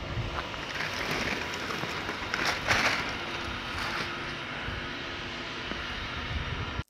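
Steady outdoor background noise, a rushing hiss over a low rumble, swelling louder about a second in and again around three seconds in, then cutting off abruptly just before the end.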